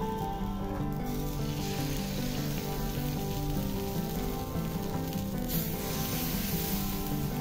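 Rice-flour batter sizzling as it is ladled into the cavities of a hot, oiled chitoi pitha mould, a steady frying hiss. Background music plays under it.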